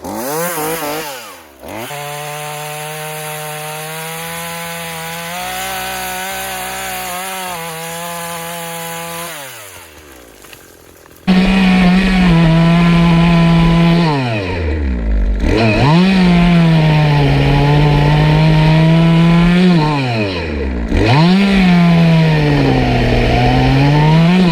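Craftsman 18-inch chainsaw running at high speed while cutting brush and small trees. It holds steady for the first several seconds; from about eleven seconds in it is much louder, and its engine pitch sags and recovers several times as the chain bites into wood.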